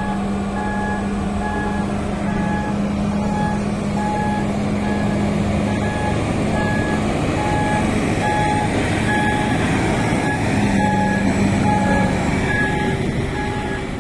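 Heavy truck's reversing alarm beeping in a steady, evenly spaced rhythm over the Scania truck's diesel engine running.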